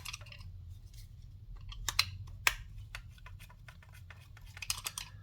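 A few sharp clicks and taps as a long 1.5 mm hex screwdriver works the screws out of a sensor's housing, over a low steady hum.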